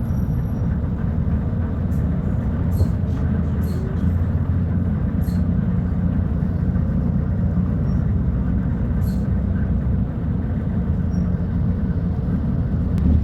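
Volvo B290RLE bus engine running with a steady low drone, a few faint ticks heard over it.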